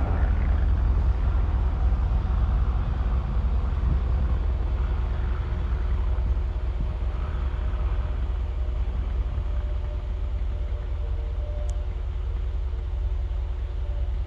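Steady low rumble of a road vehicle running, with a faint steady hum above it.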